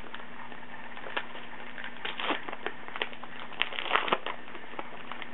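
Crinkling and crackling of a baseball card pack wrapper and cards being handled, in scattered short bursts with a busier stretch about two to four seconds in.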